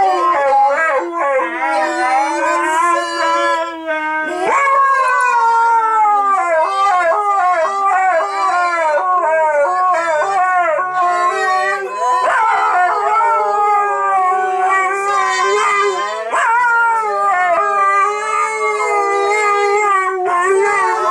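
Two Siberian huskies howling together in long, wavering, overlapping howls.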